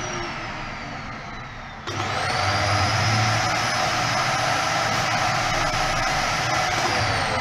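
Workshop vacuum cleaner running, sucking dust off a concrete floor. Its motor pitch sinks slowly, then about two seconds in jumps sharply back up and holds steady.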